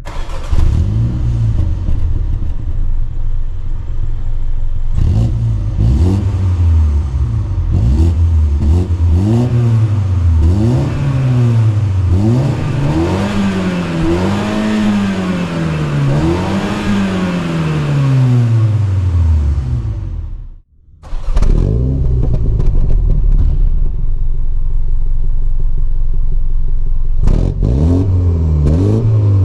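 2023 Mini Cooper S turbocharged four-cylinder engine under acceleration, its revs climbing and falling again and again, then winding down. Around two-thirds of the way in the sound cuts out for a moment, then it resumes as a steady engine drone and climbs and falls again near the end.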